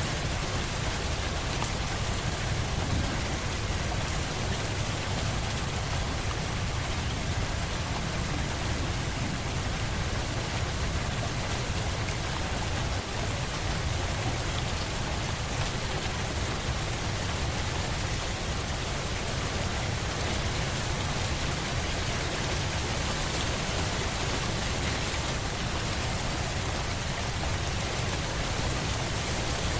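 Steady rain falling and pattering on a surface, an even hiss with no let-up.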